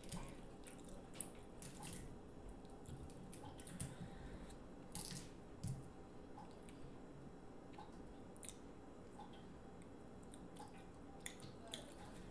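Faint wet clicks, crackles and squishes of sauce-coated fingers peeling the shells off boiled shrimp.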